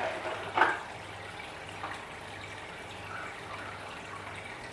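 Aquarium water trickling and dripping over a steady low hum, with a short, louder splash-like sound just over half a second in.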